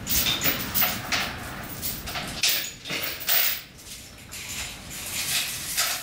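Irregular metallic clanks and rattles, about a dozen sharp knocks, as a chain hoist's chain and hook are worked loose from a just-installed V8 engine in the engine bay.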